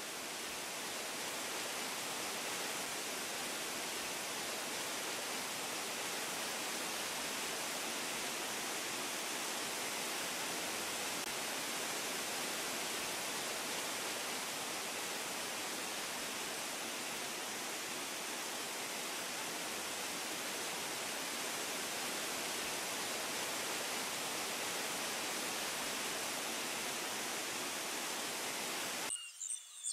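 Steady rush of falling fountain water, which cuts off suddenly near the end, where birds start chirping.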